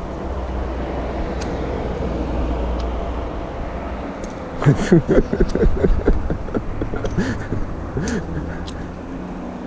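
A low rumble, like a passing vehicle, swells and fades over the first few seconds. From about halfway in, a person's indistinct voice follows, its pitch sliding up and down.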